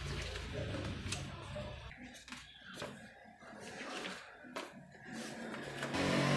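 Glossy catalogue pages being turned by hand: paper rustling and sliding, with several short flicks and slaps as pages fall over. Near the end a louder sound with steady tones, music, comes in.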